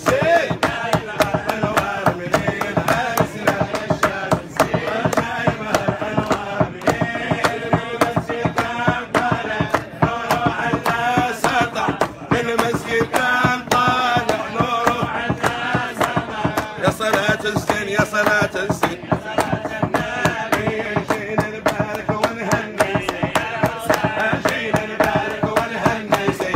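Men's voices singing a wedding nasheed together over a fast, steady percussion beat.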